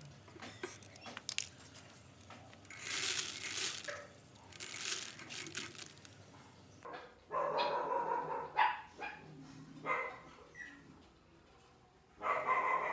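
A dog barking in several calls starting about seven seconds in, the first and longest lasting about a second and a half, after some scraping and rustling noise.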